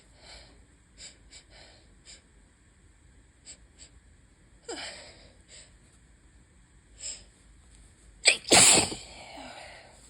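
A person sneezing from a pollen allergy. Short sniffs and breaths come first, then a sharp gasping intake about five seconds in, and one loud sneeze in two quick bursts near the end.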